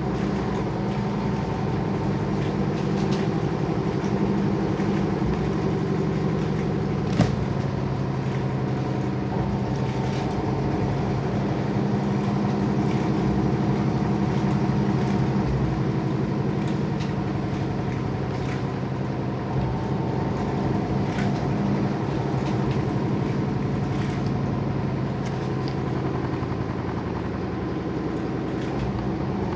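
Washing machine running, its motor and drum giving a steady hum with a few faint clicks and one sharp click about seven seconds in.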